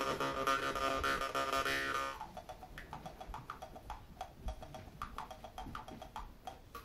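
Jaw harp (vargan) being played: a buzzing drone with overtones sweeping up and down. About two seconds in it drops to softer, separate short twangs.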